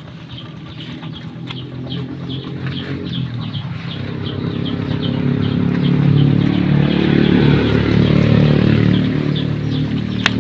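A motor vehicle's engine passing by, growing louder to a peak about two-thirds of the way in and then fading. Short high chirps repeat steadily over it.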